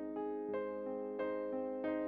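Background piano music, with single notes struck at an even pace over held tones.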